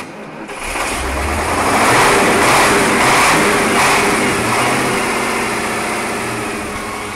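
Heavy truck engine sound, swelling up over the first two seconds and then slowly dying away, used as the intro before the music begins.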